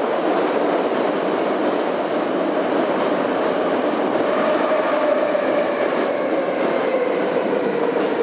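Interior of a Moscow Metro 81-717.5M car running through a tunnel: a steady, loud rumble of wheels on rail, with a faint whine that slowly drops in pitch over the second half.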